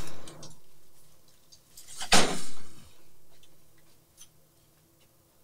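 A single loud bang about two seconds in, dying away quickly, then a quiet room with a few faint ticks.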